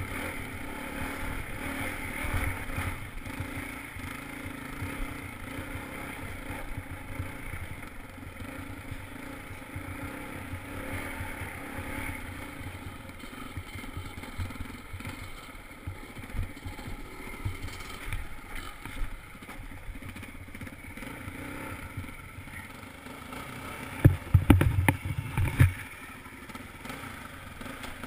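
Dirt bike engine running while being ridden. A quick run of loud, low thumps lasting about two seconds comes near the end.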